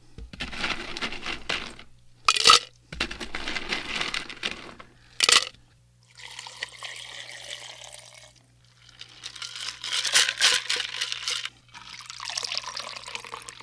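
Liquid being poured into a glass in several separate pours, each lasting a second or two, with two sharp taps about two and a half and five seconds in.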